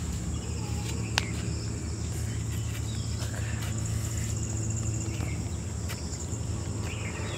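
Outdoor garden ambience: insects and birds calling over a steady background, with one sharp click about a second in.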